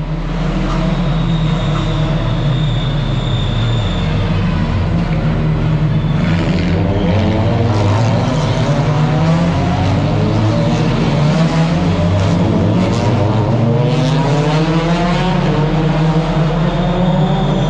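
Touring race car engines running hard as the cars pass through a tight street-circuit corner, the engine pitch rising and falling as they slow and accelerate away, with several cars passing in turn.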